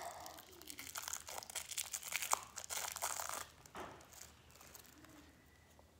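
Plastic wrapper crinkling and tearing as a stick of pink modelling clay is unwrapped by hand, a dense crackle that stops about four seconds in.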